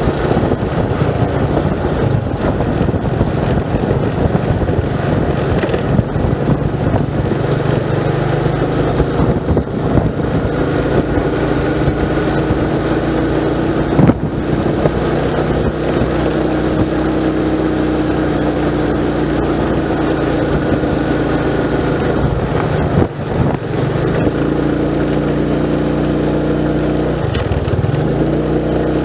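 Motorcycle engine running steadily as it is ridden, its note rising and falling with the throttle and dipping briefly near the end.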